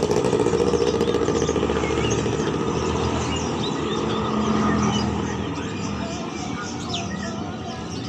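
Many caged birds chirping and twittering over the low rumble of a motor vehicle engine running close by. The engine is loudest in the first seconds and fades away.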